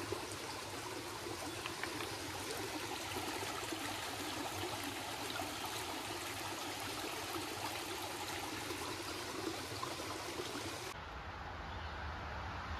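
Shallow woodland creek running over rocks and around a log footbridge: a steady rush and trickle of water. Near the end it cuts off and gives way to a low rumble.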